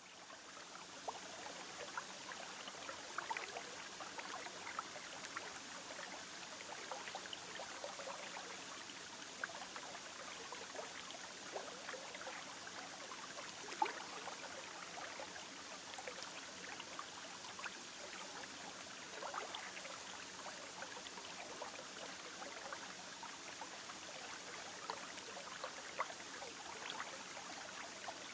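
River water running steadily, with small splashes and trickles throughout and one sharper splash about halfway through.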